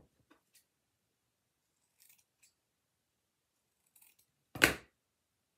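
Scissors snipping through ribbon once, near the end, after a few faint handling clicks and rustles.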